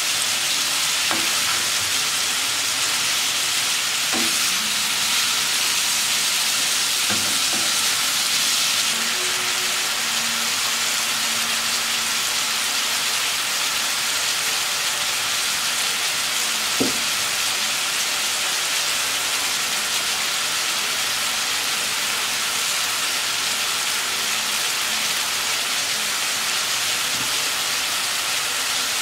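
Beef liver with onion and bell peppers sizzling steadily in a frying pan, with a few short knocks of a wooden spatula against the pan as it is stirred.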